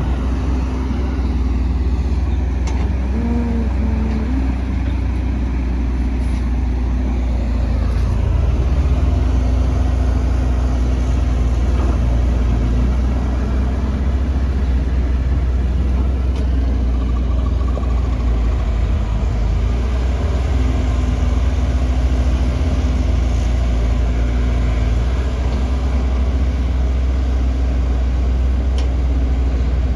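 Heavy construction-machine diesel engine running steadily, its sound mostly low-pitched.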